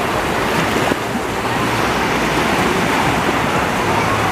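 Waves washing onto a Lake Huron beach, a steady rushing surf, with wind buffeting the microphone.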